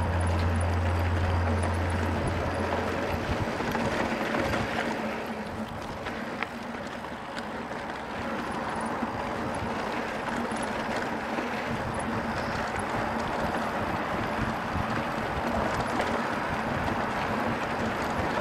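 Mountain bike rolling over a dirt trail: steady tyre and trail noise with small clicks and rattles from the bike. A deep steady hum stops about three seconds in.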